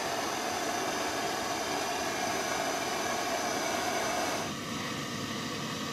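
MAP gas torch flame burning with a steady hiss; about four and a half seconds in its sound drops and thins as the flame is moved or turned down.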